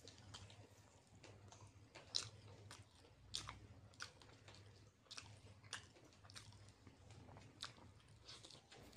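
Close-up chewing and biting of fried chicken lollipop dipped in chutney: irregular wet mouth sounds broken by sharp little crunches and clicks.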